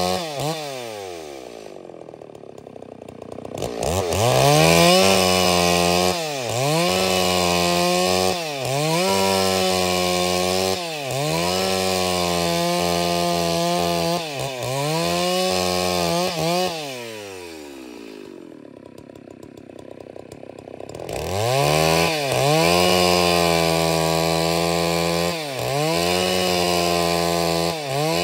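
Stihl MS 381 two-stroke chainsaw ripping angico wood into boards, running at full throttle, its revs dipping and recovering every couple of seconds under the load of the cut. Twice it drops to idle and then revs back up, about four seconds in and again around twenty-one seconds.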